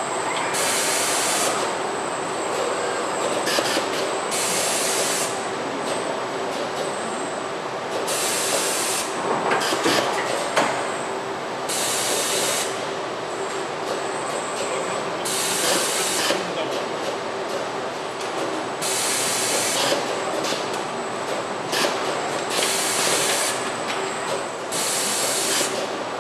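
Robotic car-body assembly line running: a steady machine noise, broken about every three to four seconds by a short, sharp hiss of compressed air, eight times in all.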